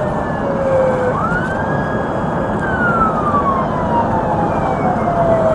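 Police siren wailing, heard from inside a moving patrol car over steady road and engine noise. The pitch falls, sweeps up quickly about a second in, holds briefly, then falls slowly.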